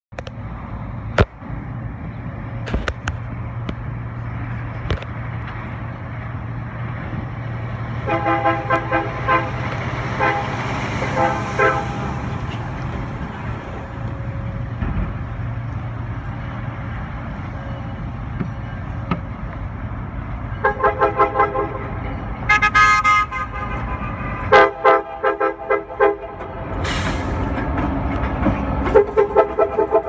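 CSX GP38-2 diesel locomotive sounding its multi-note air horn in bursts of rapid short toots, starting about eight seconds in and again from about twenty seconds on, over the steady low rumble of its two-stroke EMD V16 engine.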